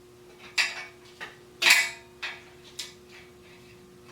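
Sharp metal clinks and taps, five in under three seconds with the loudest near the middle, as a tool works at the push-on axle cap on a hand truck's axle, trying to pop it off.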